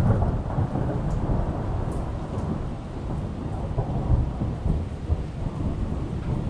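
Thunder rumbling, loudest at the start, over steady rain falling on a wet concrete driveway.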